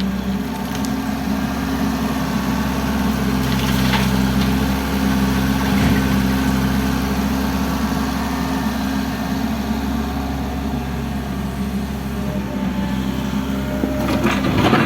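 Excavator's diesel engine running steadily. Near the end come a few sharp cracks and knocks of building debris starting to break.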